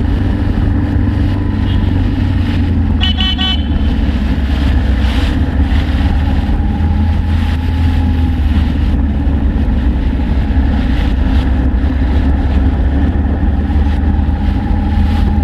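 Suzuki Inazuma GW250's parallel-twin engine running steadily at low speed on the move, with a short horn toot about three seconds in.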